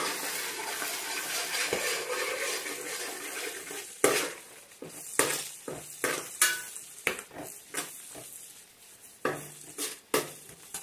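Curry leaves and chillies sizzling in hot oil in an aluminium pot while a spoon stirs them. The sizzle is loudest for the first four seconds or so and then dies down, while the spoon scrapes and clinks against the pot several times.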